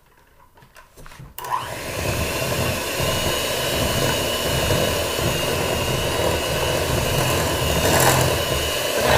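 Electric hand mixer switching on about a second and a half in and running steadily, its beaters creaming shortening and sugar in a mixing bowl.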